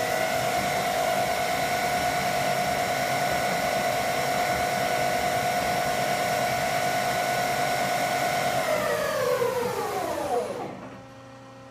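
Mori Seiki SL3 CNC lathe's spindle, driven by its new spindle drive and motor, running at constant speed with a steady whine. Near the end the whine falls in pitch and fades as the spindle spins down to a stop.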